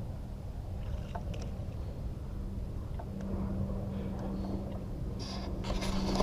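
Low wind rumble on the microphone, with a few faint ticks and a steady low hum. A hissy, splashy noise rises near the end.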